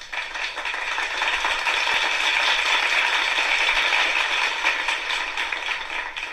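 A steady, dense crackling and rattling noise, with no tune or voice in it.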